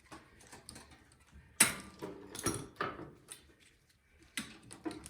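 Clicks and knocks of hand tools and metal parts being handled while disconnecting the fuel line from a snowblower carburetor, a handful of separate knocks with the sharpest about a second and a half in.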